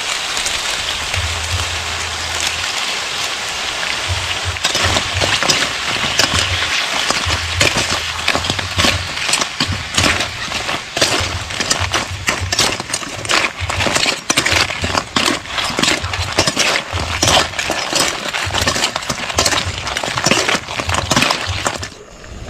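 Blue crabs sizzling in a wok, then two metal spatulas clattering and scraping against the wok and the crab shells in quick, irregular clinks as the crabs are tossed. The level drops sharply near the end as a lid goes on.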